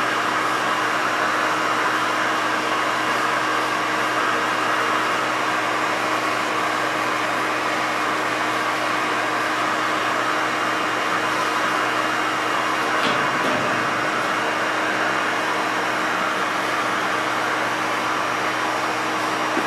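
Miele Twist upright vacuum cleaner running steadily, a constant motor hum and rush of air, with one brief knock about two-thirds of the way through.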